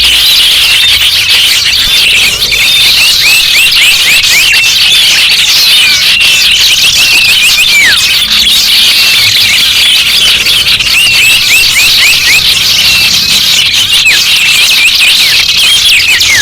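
Dense chorus of many small songbirds chirping at once, a loud unbroken mass of short high chirps and quick downward-sweeping notes.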